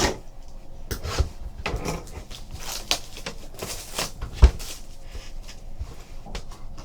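Trading cards and their packaging being handled on a table: irregular rustling, sliding and light tapping, with one louder thump about four and a half seconds in.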